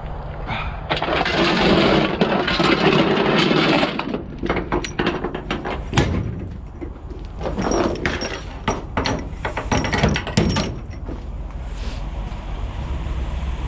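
Work around a truck during a backhoe unload: a steady low engine rumble, a loud rushing noise lasting about three seconds, then a run of sharp knocks and clanks for several seconds.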